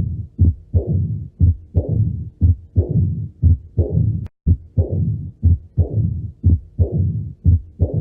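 Heart sounds of mitral stenosis heard on auscultation: about one beat a second, each with sharp, short valve sounds and a low rumbling murmur between them, the diastolic rumble typical of a narrowed mitral valve. The sound drops out for a moment about four seconds in.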